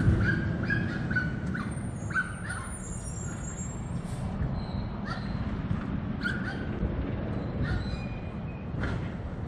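Repeated short animal calls, several a second at first and then spaced a second or so apart, over a steady low rumble. A few high bird chirps come about two seconds in.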